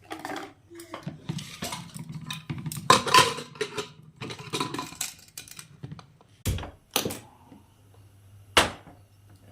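Kitchen cookware and utensils being handled: irregular clattering and scraping, then three sharp knocks in the second half.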